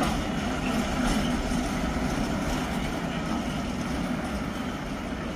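Indian Railways MFS-120 track-machine wagons rolling past on the rails: a steady noise of wheels and bogies on track, slowly growing quieter toward the end.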